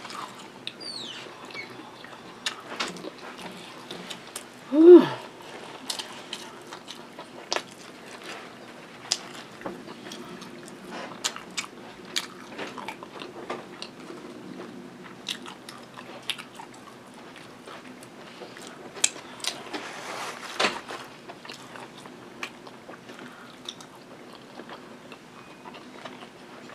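Close-up eating sounds: a person chewing and biting food, with many small wet mouth clicks. A brief vocal sound comes about five seconds in.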